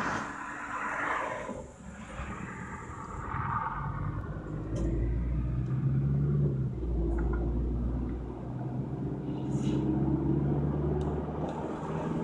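Car engine and road rumble heard from inside the cabin as the car pulls out onto the road and drives on. The engine note rises and falls, with a steady low rumble underneath.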